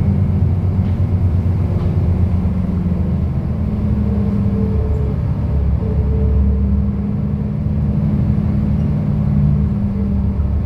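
Cummins diesel engine of a King Long KL6112U1 city bus running steadily, its note shifting up and down a little in pitch a few times.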